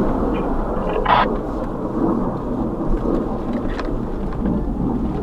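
Thunder rumbling, a long, deep rumble that sounds close.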